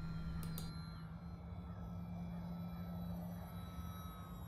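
Steady hum of the RC airplane's E-flite Park 370 electric motor and propeller in flight, heard at a distance, with faint thin whines above it.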